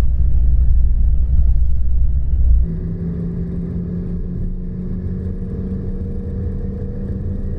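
Sleeper bus running, heard from inside the cabin: a deep rumble of engine and road noise. About three seconds in it changes suddenly to a quieter, steady engine hum with a few held tones.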